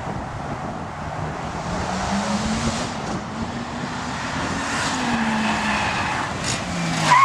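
Ford Falcon sedan's engine revving as the car accelerates, its pitch climbing for about four seconds and then falling as the driver lifts off. A short, sharp tyre squeal comes near the end as the car turns hard through the cones.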